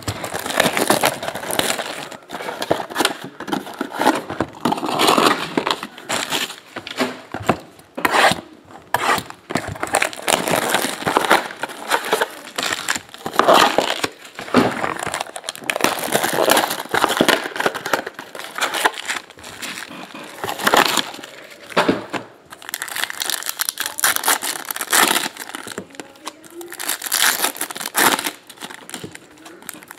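Crinkling and tearing of plastic wrap and foil as a 2017 Bowman Chrome hobby box is unwrapped and its foil card packs are handled and torn open, in irregular handfuls with short pauses.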